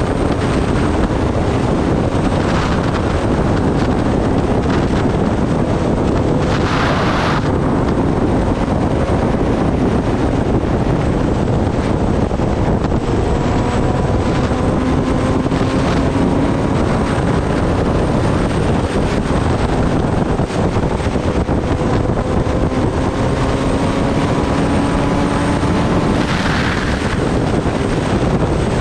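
Kawasaki Ninja ZX-10R's inline-four engine running at highway speed under heavy wind rush on the microphone, its note rising gently twice as the bike picks up speed. Two brief louder rushes of noise come about a quarter of the way in and near the end.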